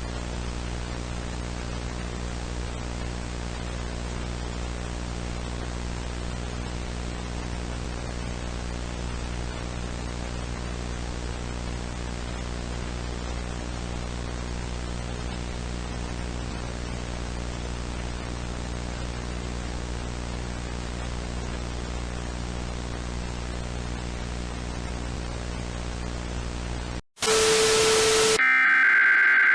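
Steady broadcast static hiss with a low hum underneath. Near the end it cuts out for an instant, a loud burst of noise follows, and then shrill electronic data tones of an Emergency Alert System header begin in short bursts.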